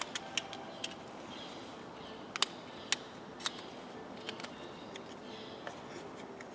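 Sharp plastic clicks and small cracks as the glued plastic shell of a Renault Megane 2 key card is pried apart by hand. About a dozen irregular snaps, the loudest about two and a half and three seconds in.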